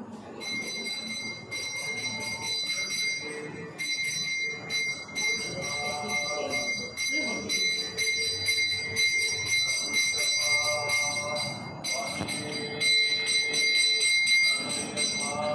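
A Hindu temple bell ringing continuously, a steady high ringing with only brief breaks, as it does during a puja offering at the shrine.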